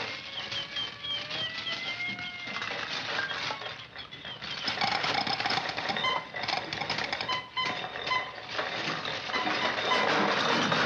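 Early sound-film comedy effects: a pitched tone gliding upward over the first couple of seconds, then a busy clatter of clicks and short tones that grows louder about halfway through.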